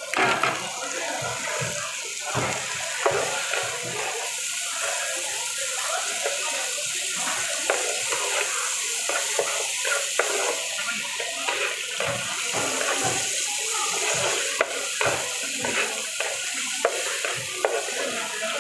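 Noodles, minced beef and vegetables sizzling in a hot nonstick pan, with a steady hiss, while a utensil stirs and tosses them, scraping and clicking against the pan many times.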